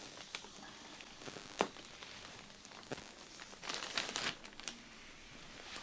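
Soft crinkling and rustling with scattered light clicks, and a louder burst of crinkling about four seconds in.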